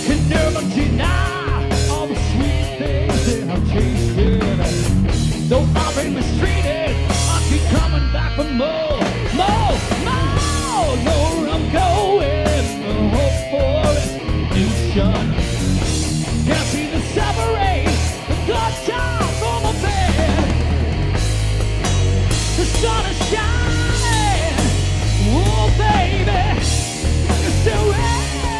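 Live rock band playing loud: electric guitars, bass guitar and a drum kit, with a male lead singer.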